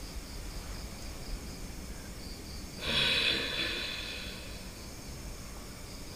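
Insects chirping in a steady pulsing rhythm. About three seconds in, a short, loud breath sound from a person rises and fades over about a second.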